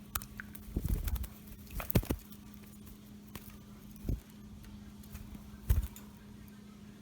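Budgies bathing, splashing and fluttering in water in about five short, uneven bursts, over a faint steady hum.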